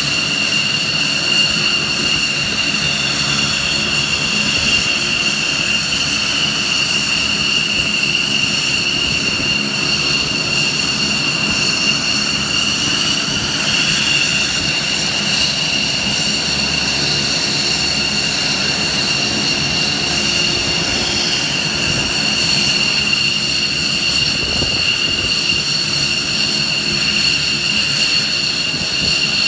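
Aircraft turbine engines running at idle: a steady high-pitched whine over a low rumble.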